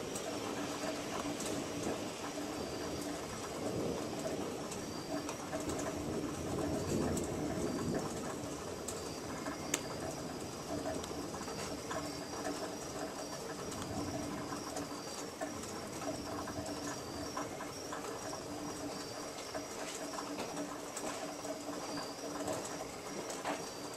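Outdoor night ambience at the tail end of a thunderstorm: an even hiss with scattered faint clicks and drips. Over it runs a high, evenly pulsed chirping and a low steady trill. No thunder clap stands out; the sound is a little louder for the first several seconds, then settles.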